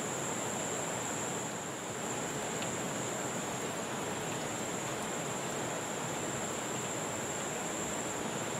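Steady rushing of a muddy river flowing past, with a constant high-pitched insect drone over it.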